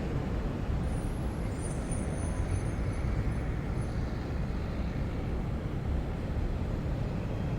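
City traffic ambience: a steady, dense low rumble of road traffic, with a faint high-pitched squeal from about a second in that fades out after a few seconds.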